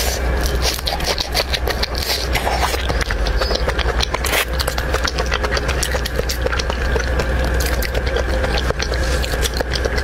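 Close-miked eating of crab and shrimp: rapid crackling and clicking of shells being cracked and chewed, over a steady low hum.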